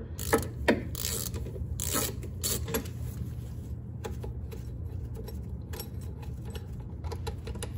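Irregular metallic clicks and scrapes as a hand works the driveshaft's inner CV joint at the transmission flange, with a steady low hum underneath.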